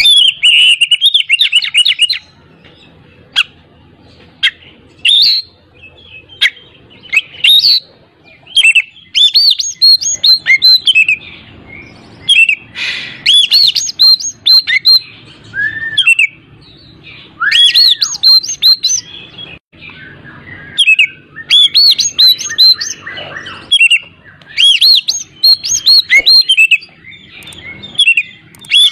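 An Oriental magpie-robin (kacer) singing loudly in bouts of rapid chirps and whistled notes, each bout a second or two long with short pauses between. After an opening phrase it gives only scattered single notes for several seconds, then sings densely to the end.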